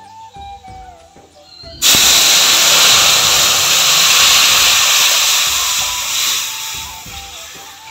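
Hot tempering oil (phoron of dry chillies, bay leaf and panch phoron) in a kadai sizzling loudly as cooked dal is poured in. It is a sudden hiss that starts about two seconds in and eases off near the end.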